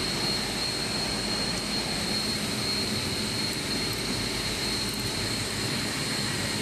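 Industrial machinery running steadily in a plant room: a constant noisy hum with a thin, steady high whine over it.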